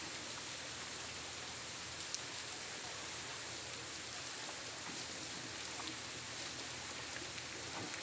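Steady hiss of rain, with a few faint ticks of drops.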